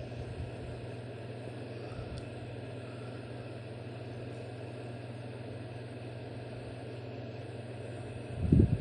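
Steady low mechanical hum over an even background hiss, with a brief louder low bumping sound near the end.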